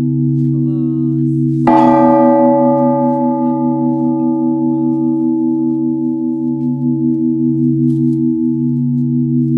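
Church bells ringing: one sharp strike about two seconds in whose bright overtones fade over several seconds, over the steady, slowly pulsing hum of bells still sounding.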